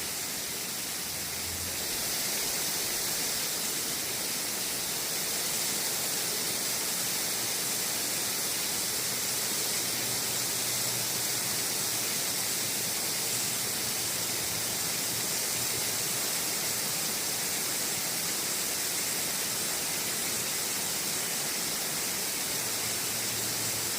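Water spraying steadily from a garden hose: a constant hiss, strongest in the high end, that gets slightly louder about two seconds in.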